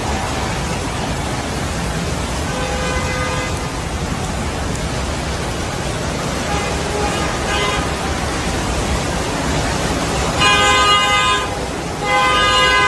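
Car horns honking over a steady rush of heavy rain and traffic: fainter honks early on, then two long, loud blasts near the end.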